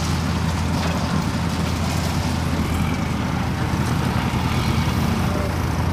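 Crane truck's diesel engine running steadily at a low idle, driving the loader crane's hydraulics while it lifts the load.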